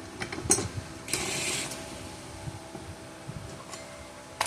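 A new steel blade being fitted to the underside of a walk-behind rotary mower. There are a few metal clinks, a brief scrape about a second in, and another click near the end, over a faint steady hum.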